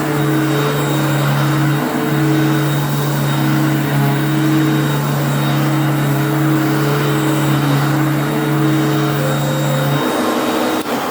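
1994 Electrolux Glider twin-fan upright vacuum cleaner running steadily at full suction over sand in carpet, a constant motor hum and rushing air. About ten seconds in the hum drops away and a click follows near the end as it is switched off.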